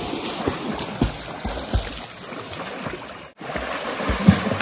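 Swimmers splashing and kicking through water, with irregular sloshes and sprays. The sound cuts out for a moment a little over three seconds in, then comes back with a loud splash.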